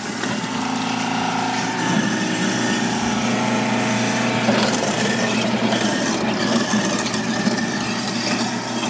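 A sink food-waste disposal unit running and grinding chunks of zucchini flushed in with hose water: a steady grinding hum with water running through it.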